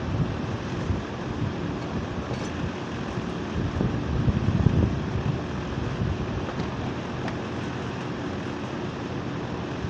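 Outdoor condensing unit of a split-type air conditioner running: a steady compressor hum under the rush of the condenser fan, swelling briefly about halfway through.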